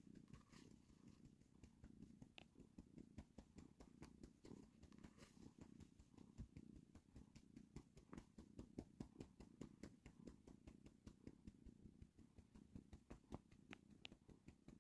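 Domestic cat purring, a faint steady rumble close to the microphone.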